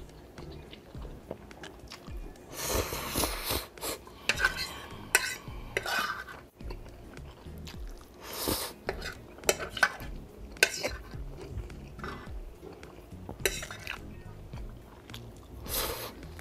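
A metal fork scraping and clinking on a ceramic plate while gathering noodles, with close-up chewing of a mouthful of noodles. The sounds come in short scattered bursts rather than as a steady sound.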